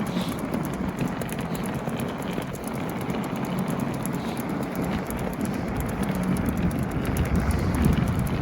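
Inline skate wheels rolling over pavement in a steady rumble, with wind buffeting the microphone.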